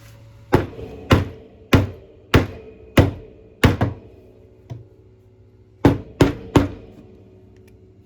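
Hard knocks on the metal parts of a cordless drill's chuck and gear section, each with a brief metallic ring: six evenly spaced strikes about every half second, a light one, then three quicker strikes near the end. It is the sound of working a stuck part loose.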